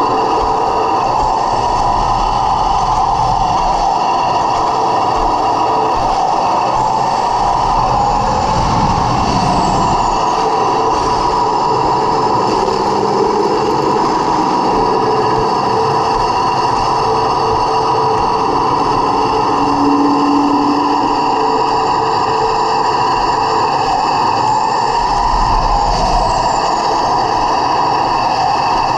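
1/16-scale Heng Long T-90 RC tank driving, its electric drive motors and gearboxes whining steadily, with the pitch shifting slightly as it manoeuvres.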